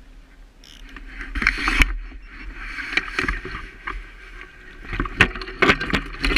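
Wind and water noise around a small fishing boat, with several sharp knocks against the boat and gear.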